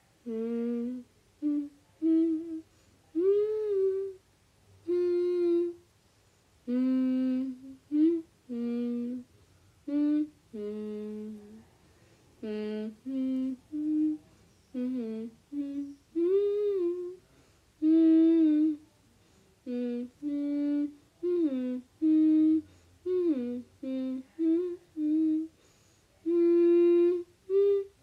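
A person humming a slow tune with their voice, one held note after another and short breaks between phrases, the pitch stepping up and down.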